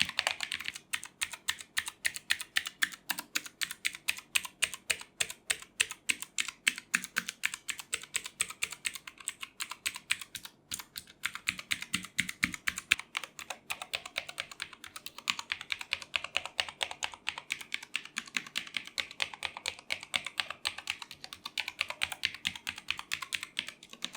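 Continuous fast typing on an Armaggeddon MKA-61C mechanical keyboard with blue switches: a rapid run of sharp keystroke clicks, several a second, with a brief pause about ten seconds in. This is a typing sound test of the keyboard, whose switches were lubed and whose case was dampened with soft cloth.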